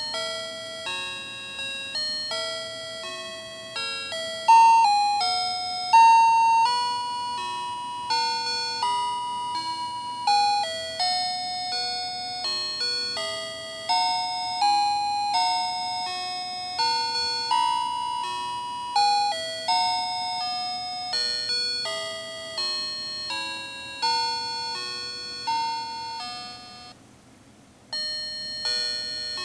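Fisher-Price musical crib toy playing an electronic lullaby in bell-like chime tones, one note after another, each note ringing and fading. Near the end the tune stops for about a second and another tune starts.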